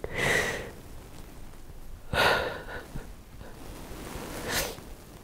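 A person breathing heavily, three loud breaths about two seconds apart, like sighs during an emotional moment.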